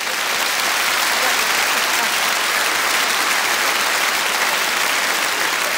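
Large theatre audience applauding, a dense, even clapping that holds steady throughout.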